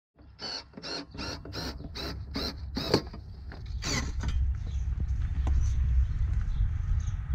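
A screw being worked into the Mini Cooper S intake heat shield by hand: a run of about seven short, evenly spaced squeaky strokes, about three a second, then one louder stroke about four seconds in, over a steady low rumble.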